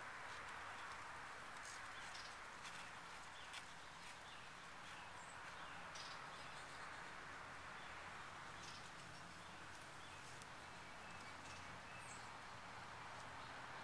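Faint steady outdoor background hiss, with a few scattered faint ticks.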